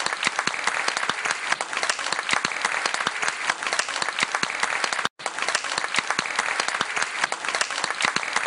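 Audience applauding, a dense steady patter of many hands clapping, with a very short dropout about five seconds in.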